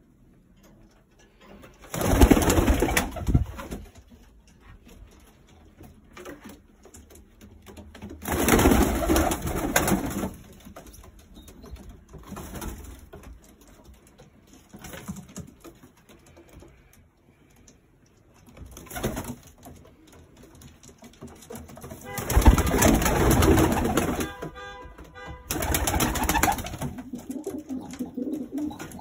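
Domestic pigeons cooing in a loft. Several loud rushing bursts break in: about two seconds in, around nine seconds in, briefly near nineteen seconds, and a longer stretch from about twenty-two to twenty-seven seconds.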